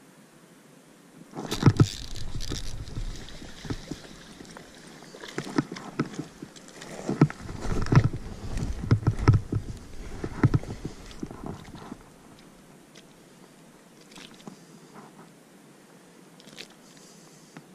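Irregular knocks, thumps, scrapes and splashing as a small bass is hooked and fought on a bamboo rod and baitcasting reel. The noise starts suddenly about a second and a half in and dies down after about twelve seconds, leaving a few faint clicks as the fish is handled.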